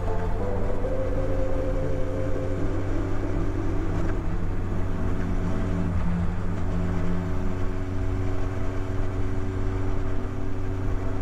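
Honda CB1300SF inline-four engine running under way on a motorcycle ride, with wind noise over the mount. The engine note steadies and shifts pitch a couple of times, once about six seconds in.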